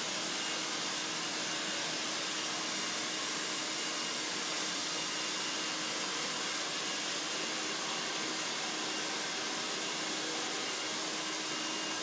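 Steady rushing air noise of a running blower motor, unchanging throughout, with a faint low hum underneath.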